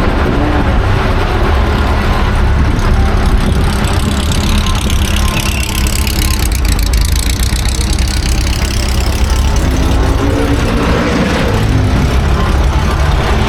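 Classic racing car engines running loud, with the engine note shifting in pitch in the second half.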